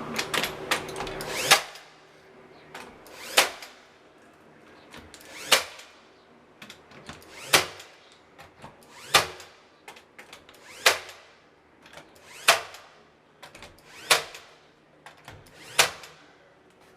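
A tool worked in short, sharp strokes, about nine in all, roughly one every two seconds.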